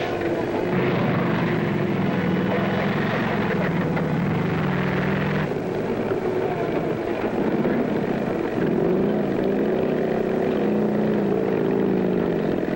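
Military vehicle engines running as tracked vehicles, motorcycles and a jeep drive along railway flatcars. It is a steady engine drone that changes abruptly twice. Near the end the engine note rises and falls.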